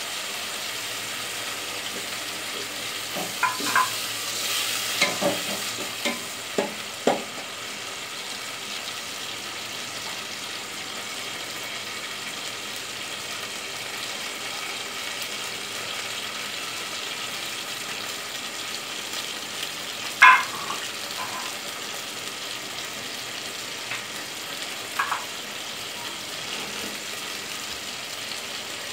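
A pot of oily onion, tomato and green-chilli broth boiling on a gas stove, a steady bubbling sizzle as the oil and water cook together. A few sharp metal clinks of the slotted spoon against the pot break in, clustered a few seconds in and once loudly about twenty seconds in.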